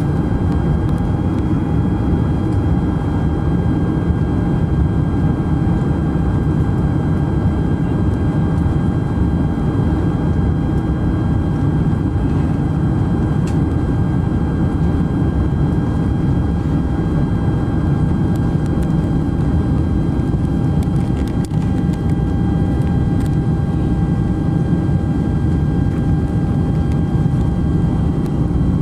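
Steady jet engine and airflow rumble inside the cabin of a Boeing 747SP descending on approach with its flaps extended, with a faint steady whine over it.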